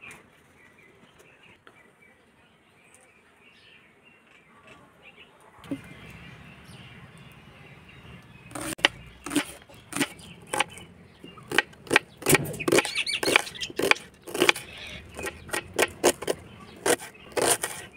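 A kitchen knife chopping a red onion on a wooden cutting board: a run of sharp, uneven knocks of the blade striking the board. The knocks start about halfway through, after a faint stretch.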